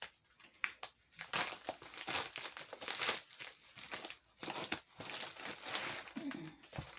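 Plastic packaging crinkling and rustling in the hands, in irregular bursts, as cosmetic bags and brushes are unwrapped.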